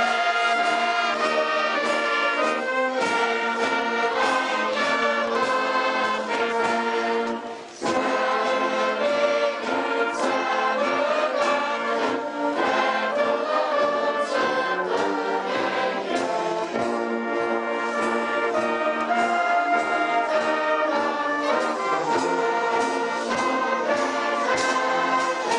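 Brass band music: a steady run of chords and notes, with a short break about seven and a half seconds in.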